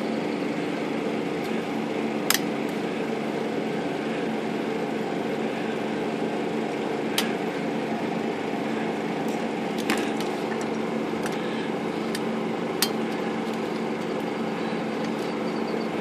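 A handful of sharp metal clicks and taps, spread out, as the margin rack is worked loose from a Smith Corona Skyriter typewriter's carriage with a metal rod, over a steady background hum.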